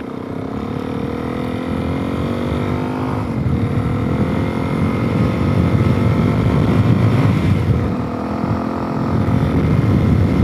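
Suzuki DRZ400S single-cylinder four-stroke engine, fitted with an aftermarket exhaust with spark arrestor, pulling under acceleration. The pitch climbs, drops at a shift about three seconds in, climbs again and dips briefly near eight seconds, over a heavy low rush of wind on the microphone.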